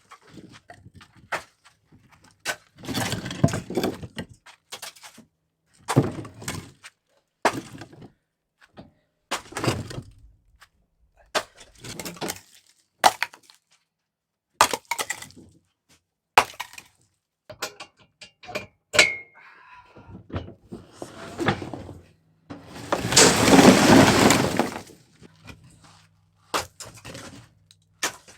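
Split firewood knocking and clattering as pieces are handled and tossed onto a pile: a string of separate wooden knocks and cracks, with a longer, louder clatter about 23 seconds in.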